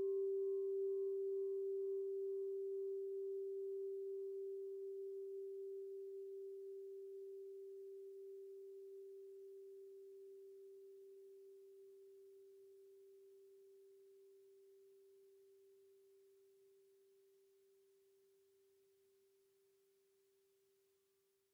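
A singing bowl ringing out: one steady low tone with a fainter, higher overtone that fades within the first several seconds, the whole sound slowly dying away until it is gone near the end.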